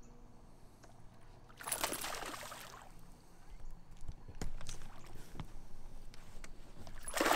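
Water splashing as a hooked smallmouth bass thrashes at the surface beside the boat: two short splashes, one about two seconds in and one near the end, with light clicks in between.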